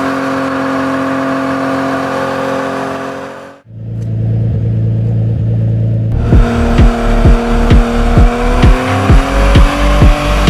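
Nissan 200SX S13's engine held at steady high revs in a tyre-smoking burnout. It cuts off abruptly about three and a half seconds in. Electronic music follows, with a heavy, regular kick-drum beat.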